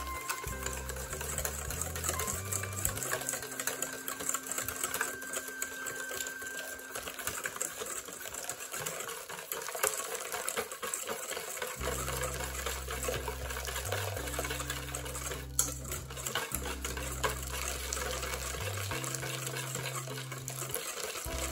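Wire whisk beating fast against a stainless steel bowl, a steady rapid metallic clatter, as hot milk is poured in a thin stream into egg yolks, sugar and cornstarch: tempering the yolks for pastry cream.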